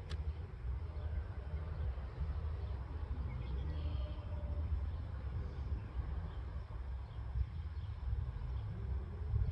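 Outdoor field ambience: a steady, uneven low rumble of wind on the microphone, with a few faint high chirps.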